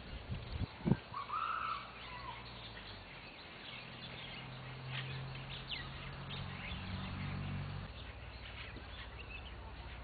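Small birds chirping with many short high calls, and one louder, fuller note about a second in, just after a few sharp knocks. A low steady hum sits under the chirping through the middle.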